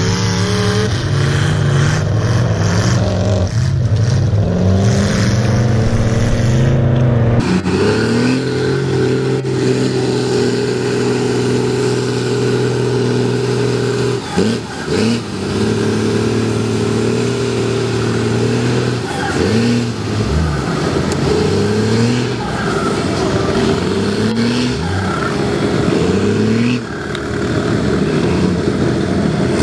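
Off-road vehicle engine under heavy throttle in mud, revving up and down. About seven seconds in the sound changes abruptly, and after that the revs repeatedly sweep up and drop back as the throttle is worked.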